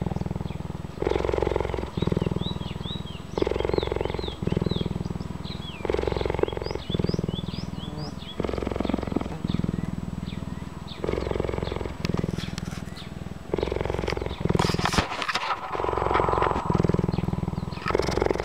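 Cheetah purring loudly and continuously, close to the microphone, the purr changing with each breath in and out about every one to two seconds. It is the contented purr of a cheetah used to people, kept up while it is stroked.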